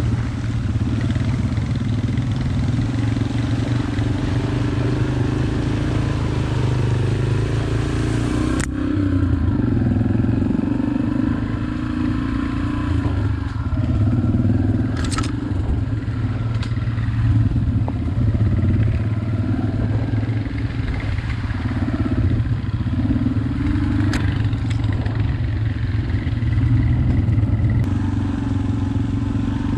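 Small dirt-bike engine running steadily at low trail speed, its note rising and falling a little as the rider works the throttle, with a few sharp clicks and clatter from riding over the rough trail.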